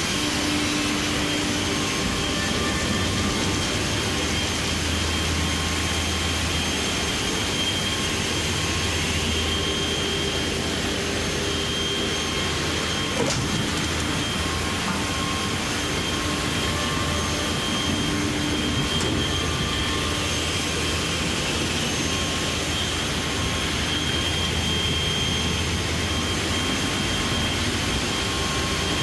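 HOMAG SAWTEQ B-300 panel saw and its workshop machinery running: a steady, even whir of motors and moving air, with a faint high whine over a low hum. One light click about halfway through.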